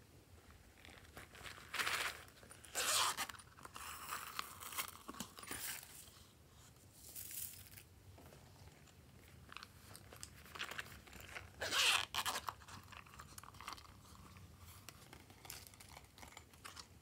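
Thin plastic containers of slime add-ins crackling and rustling as they are handled and emptied, in several short crunchy bursts, the loudest about twelve seconds in.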